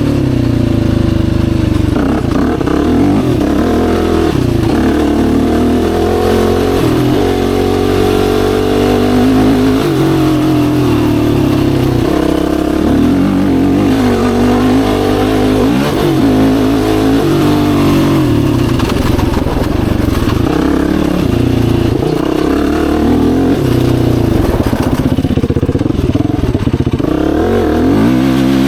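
Yamaha YFZ450R quad's single-cylinder four-stroke engine running under load while riding, its pitch rising and falling repeatedly as the throttle is opened and closed and gears are changed.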